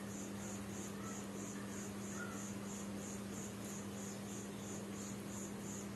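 A cricket chirping steadily in the background, high-pitched and evenly paced at about three chirps a second, over a low steady hum.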